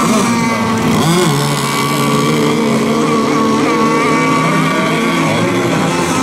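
Radio-controlled racing boats running flat out across the water, several high-revving motors at once. The pitch dips and climbs back about a second in.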